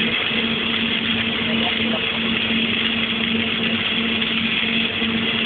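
A welding machine running steadily during self-shielded flux-cored (Innershield) welding: a constant-pitch hum over an even hiss.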